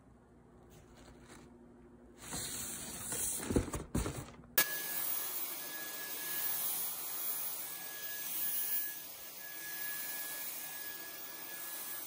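Dyson V10 cordless stick vacuum switching on suddenly about four and a half seconds in and then running steadily: an even whooshing hiss with a thin steady whine. Before it starts there is some rustling and a few knocks.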